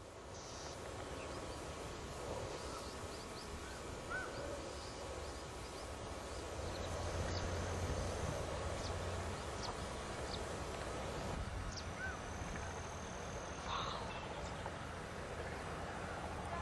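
Outdoor wetland ambience: a steady low wind rumble on the microphone, swelling a little mid-way, with scattered short bird chirps and a thin high whistle held for about two seconds past the middle.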